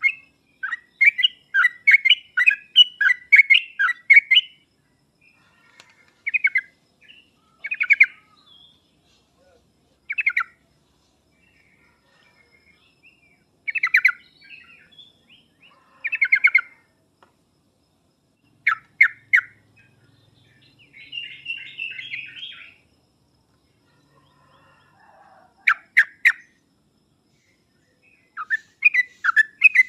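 Yellow-vented bulbul (trucuk) singing in short bubbly phrases of quick notes separated by pauses, a lure song for getting a reluctant bulbul to answer. A longer fast run opens the stretch and another starts near the end, with a brief scratchier chatter in the middle.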